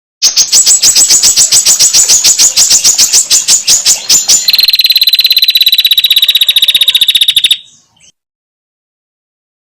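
Female prinia (prenjak) trill calls, the rapid 'ngetir' chatter: a fast run of sharp, evenly repeated notes. About halfway through it changes to a quicker, buzzier, higher trill, which stops abruptly about three seconds later.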